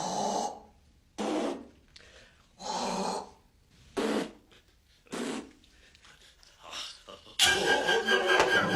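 A man coughing and clearing his throat in about six short, separate bursts. Music comes in near the end.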